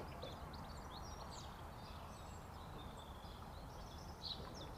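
Faint birdsong, many short chirps and trills, over a low steady outdoor background noise.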